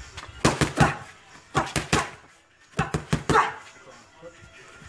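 Boxing gloves smacking focus mitts in three quick combinations of several punches each, with short pauses between them.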